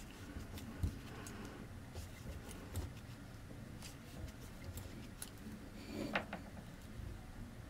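Faint handling sounds of crocheting: light ticks of the crochet hook and soft rustling of yarn drawn through the stitches, with a slightly louder rustle about six seconds in.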